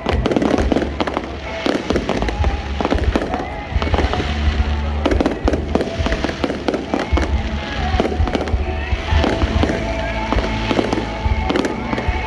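A fireworks display going off, with a dense, continuous run of bangs and deep booms, and music playing underneath.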